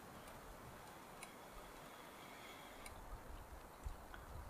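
Near silence with a few faint, scattered ticks.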